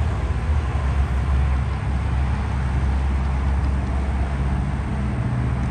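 Steady road traffic noise with a constant low engine hum.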